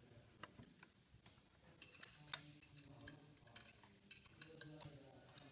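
Faint, irregular clicks and taps of small parts being handled, the loudest a little past two seconds in.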